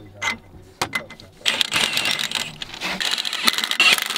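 Socket wrench ratcheting on rusty hub bolts. A few single clicks, then about a second and a half in, a fast, continuous run of clicking and rattling.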